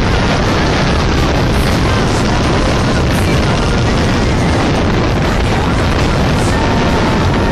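Heavy wind buffeting on the microphone of a camera carried on a moving Tomos moped, with the moped engines running underneath.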